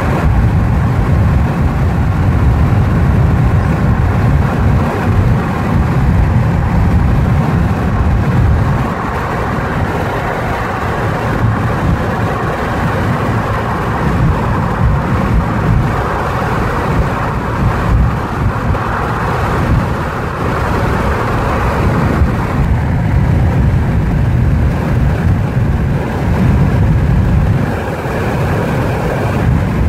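Road and wind noise of a car travelling at highway speed, heard from inside the cabin: a steady, loud, low rumble with a hiss above it.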